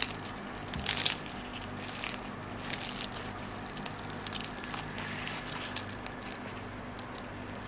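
Crisp, flaky crust of a baked thin-pastry potato and cheese pie crackling and crunching as it is torn apart by hand. There are a few louder crackles in the first three seconds, then fainter scattered crackles over a low steady hum.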